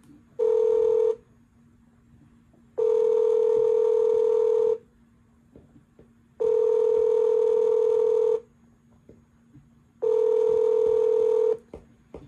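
Telephone ringback tone of an outgoing call, heard through a phone's speaker: four steady rings, each about two seconds long with pauses of under two seconds between them, the first ring shorter. The line is still ringing and has not been answered.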